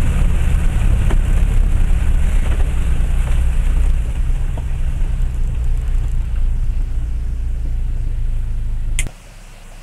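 Low rumble of a Land Rover Freelander 1 TD4's engine and tyres, heard inside the cabin as it drives slowly over a rough green lane. The rumble eases slightly about four seconds in, then cuts off suddenly with a click near the end.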